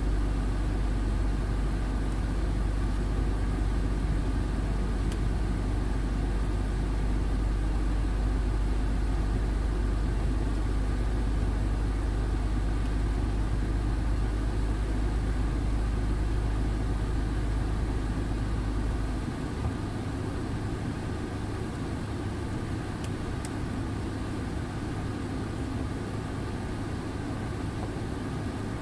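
Heavy truck's diesel engine running steadily, heard from inside the cab on a snowy road. About two-thirds of the way through, the deepest part of the drone drops away and the sound gets a little quieter.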